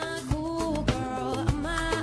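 Live pop music from a concert band: a melody line over a steady beat, with a drum stroke a little under twice a second.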